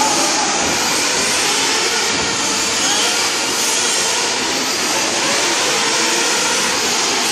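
Several nitro RC buggies' small two-stroke glow engines running at high revs around the track. Their overlapping high-pitched whines rise and fall as the cars accelerate and brake.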